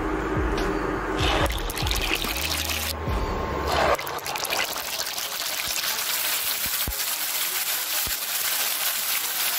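Hot cooking oil sizzling and crackling in a wok as toothpaste is squeezed into it. Background music with deep bass notes plays for the first four seconds or so, after which the sizzle is heard on its own.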